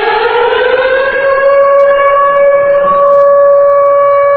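Civil air-defence siren sounding the air-raid alarm: one loud wailing tone that glides up in pitch at the start and then holds steady. Its pattern of sounding 6 seconds and pausing 6 seconds signals that an air raid has begun.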